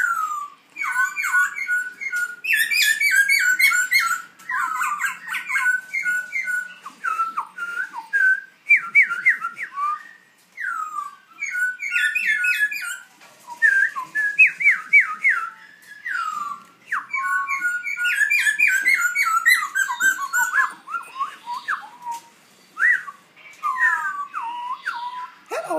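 Young black-throated laughingthrush practising its song: a long run of clear whistled notes and short phrases, sliding up and down in pitch, broken by brief pauses.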